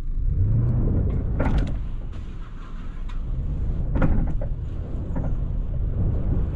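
Recovery vehicle's engine revving under load during a kinetic-rope pull of a car stuck in sand, with sharp knocks about one and a half and four seconds in, the later one the loudest.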